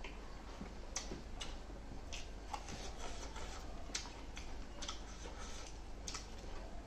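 Close-up eating sounds: wet mouth clicks and lip smacks of chewing, irregular, about two a second, over a low steady hum.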